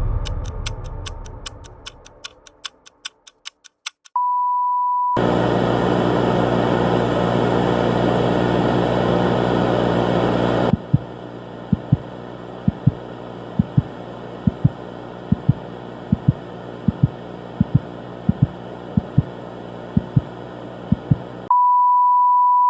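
Edited end-of-video audio. A fading sound with a run of evenly spaced ticks gives way to a steady one-note beep. Then comes about five seconds of loud dense noise, then quieter noise with irregular clicks, and it ends on the same steady beep.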